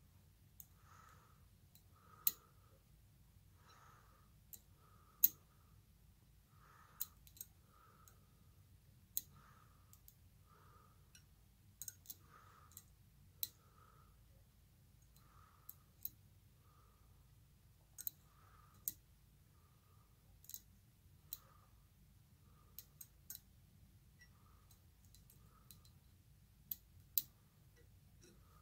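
Sharp, irregular light metal clicks, about twenty in all, as small steel bearing rollers and their retainer are handled and set by hand around the crankshaft of a Harley-Davidson flathead engine's crankcase.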